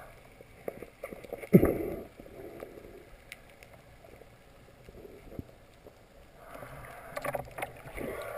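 Underwater ambience heard through a camera's housing: a low water hiss with one sharp knock about a second and a half in and a few fainter clicks, then a soft swelling rush near the end.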